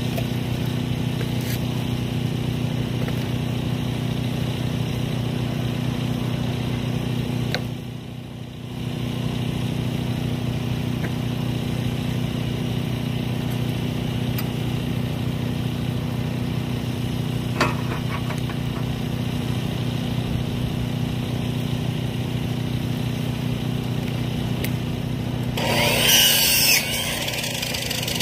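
Small gas engine of a Timbery M100 portable band sawmill running steadily at idle, with a brief dip in its sound about a quarter of the way in. Near the end comes a short, loud, high-pitched squeal.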